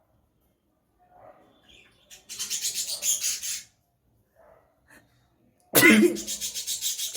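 A person forcing air hard through the nose in rapid short puffs, about six a second, in a run of a little over a second. Near the end comes a sudden loud blast of breath with a voiced start, the loudest sound, which runs straight on into another fast series of nasal puffs.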